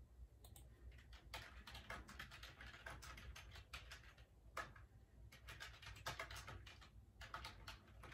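Faint typing on a computer keyboard: irregular runs of key clicks broken by a couple of short pauses.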